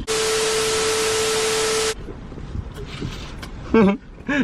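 Electronic sound effect: a steady low beep mixed with loud static hiss for about two seconds, starting and stopping abruptly, followed by a couple of short voice sounds near the end.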